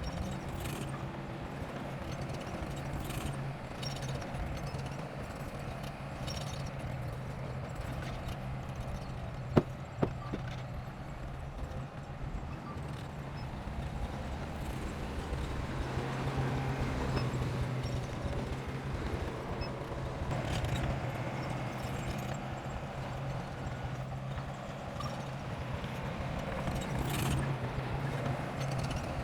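Heavy earthmoving machinery running: a steady low diesel engine hum with irregular knocks and clatter. Two sharp, loud knocks come about half a second apart roughly a third of the way in, and the engine grows somewhat louder past the middle.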